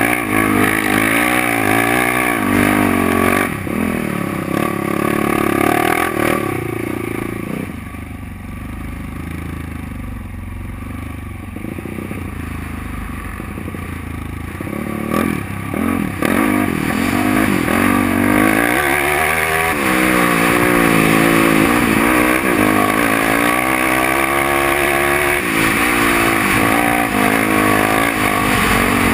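Yamaha sport quad's engine under way on sand, its revs rising and falling with the throttle. It eases off for several seconds in the middle, then climbs in a rising sweep and holds high revs.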